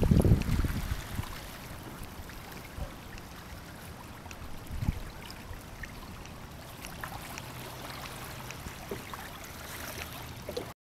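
Water trickling and lapping against the hull and outrigger of a Hobie Island sailing kayak under way, a steady faint wash with small scattered splashes. A loud low rumble in the first second, and the sound cuts off just before the end.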